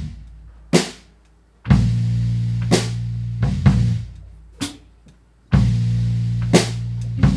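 Live rock band playing an instrumental stop-start passage: drum kit hits with cymbals mark accents about once a second over held bass and electric guitar chords. The music drops out briefly twice, then the full band comes in together at the end.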